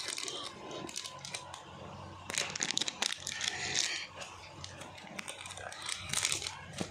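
Packaging being handled for a photo-card order: crinkling and rustling in irregular bursts, loudest from about two to four seconds in and again near the end.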